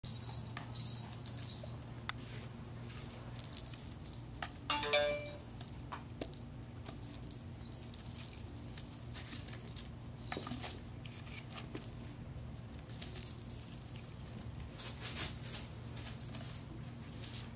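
Kittens batting a dangling ball on a sisal-rope scratching post and scrambling on its base: scattered light taps, scratches and rattles over a steady low hum. About five seconds in there is a brief high-pitched squeak.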